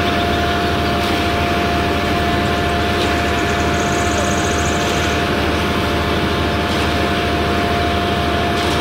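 Concrete mixer truck running steadily while it discharges concrete down its chute: a low engine hum with a constant whine over it.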